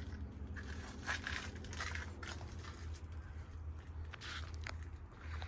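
Footsteps crunching through dry brush and debris, a step every second or so, over a steady low rumble.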